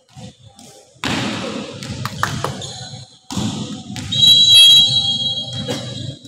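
Volleyball rally in a sports hall: a few sharp thumps of the ball being struck, then a referee's whistle blown for about a second near the end, the loudest sound, ending the point.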